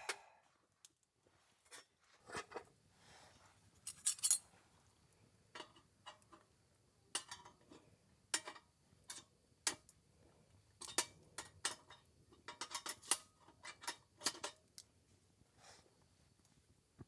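Camping gear being handled: an irregular series of light metallic clinks, clicks and knocks, like utensils and cookware being set down and moved about, over a faint low hum.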